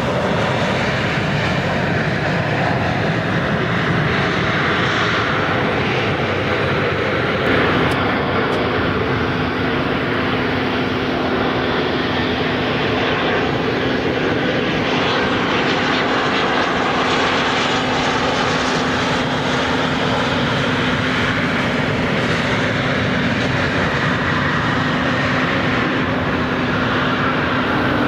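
Embraer regional jets' turbofan engines, loud and steady throughout, with a steady low hum joining about seven seconds in.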